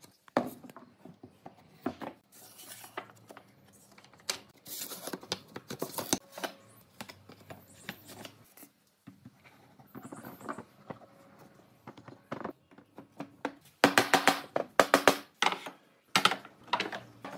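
Irregular knocks, taps and scrapes of wood and tools being handled, with a quick run of clicks about fourteen seconds in and another shortly after.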